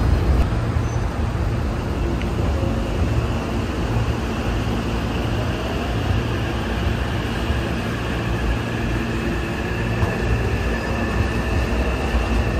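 Hankyu electric train running on the rails: a steady rumble with a faint high whine that slowly rises in pitch.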